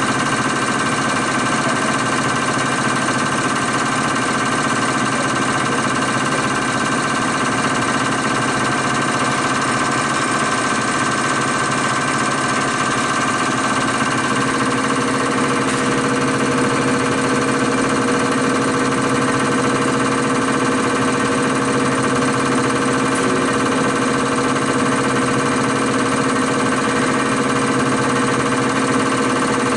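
CR926 common rail test bench running an injector test, with its high-pressure pump driven at 800 rpm and holding 160 MPa rail pressure while the injectors spray. It makes a loud, steady mechanical din with a hum whose pitch shifts slightly about halfway through.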